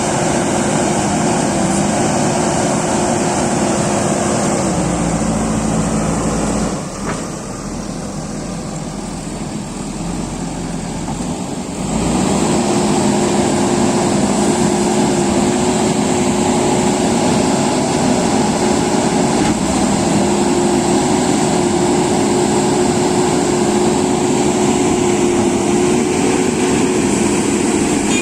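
JCB excavator's diesel engine running steadily at working speed. About a quarter of the way in it drops to a lower, quieter note for several seconds, then comes back up abruptly and runs steadily again.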